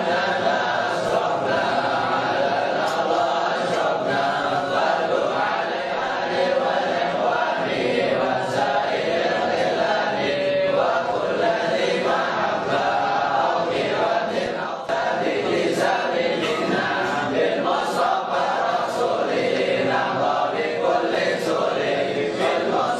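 A crowd of men chanting together in unison, a dense, continuous mass of voices.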